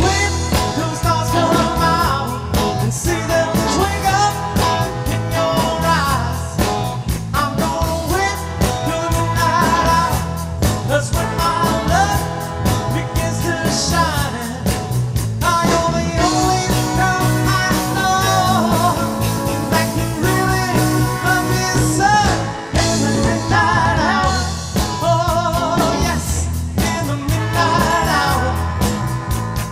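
A live band playing a song: a male lead singer over a drum kit keeping a steady beat, with electric bass and trombone and saxophone.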